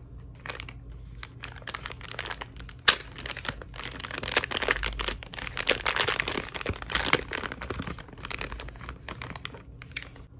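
Plastic packaging crinkling and rustling as the headset's cables are handled and unwrapped, densest through the middle, with one sharp click about three seconds in.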